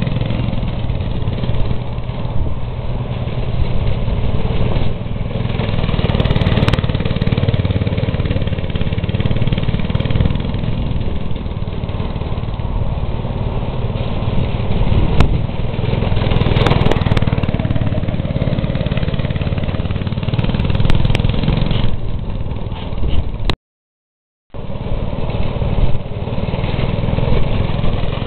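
Small engine of an old go-kart running as the kart is driven, its level rising and falling with the throttle. The sound drops out completely for about a second near the end, then resumes.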